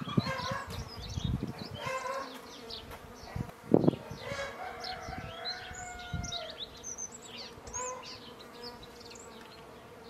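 Village yard sounds: songbirds chirping, a chicken giving one longer call of about two seconds near the middle, and a faint steady buzz of insects. A single thump comes about four seconds in.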